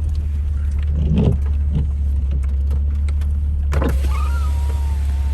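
Jeep running, heard from inside the cabin as a steady low drone, with a couple of knocks. About four seconds in a thin, slightly wavering whine starts.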